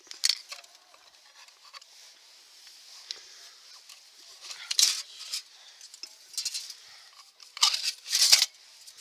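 Rustling and handling noises from camping cookware and its bag being handled, in a few short bursts, the longest near the end.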